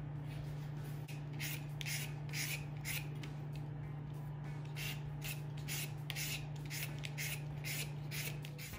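Peeled green papaya being shredded with a handheld papaya shredder: rasping strokes about two a second, starting about a second and a half in and pausing briefly near the middle, over a steady low hum.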